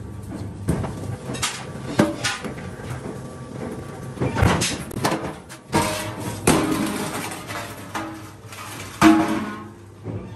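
Background music with loud, irregularly spaced percussive hits over a steady low hum, the strongest hit about nine seconds in.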